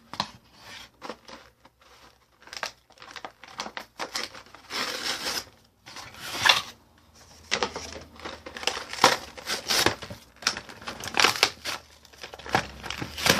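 Toy packaging being torn open and crinkled by hand, in irregular rustles and sharp crackles.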